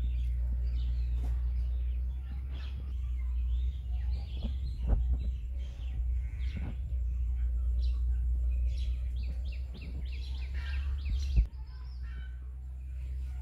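A flock of broiler chickens cheeping and chirping in scattered short calls over a steady low hum, with a single sharp knock near the end.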